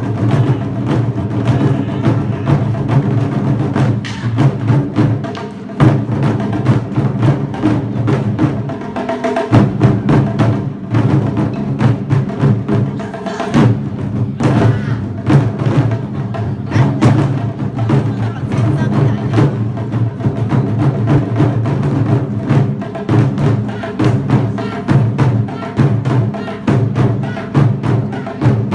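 Festival percussion music: drums with dense, sharp wooden clacks throughout.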